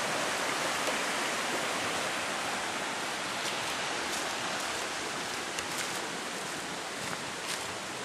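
Steady rushing outdoor noise, easing off slightly, with a few faint ticks or rustles from about three and a half seconds in.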